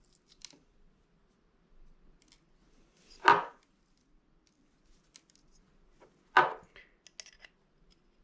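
Small door-latch parts being handled: faint clicks, and two louder clacks about three seconds and six and a half seconds in.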